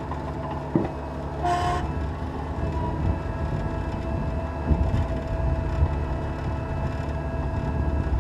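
Cat 236B skid steer loader's diesel engine running steadily under work, with a short hiss about a second and a half in and a thin steady whine over the engine.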